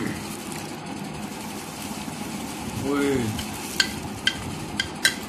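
Metal spoon clinking against a ceramic serving bowl four or five times in the last second and a half, over a steady background hiss.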